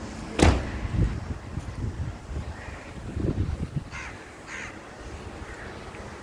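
Crows cawing several times, short separate calls, over wind buffeting the microphone. A sharp thump on the microphone about half a second in is the loudest sound.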